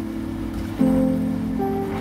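Background music: an instrumental passage of held chords, shifting to a new chord about a second in.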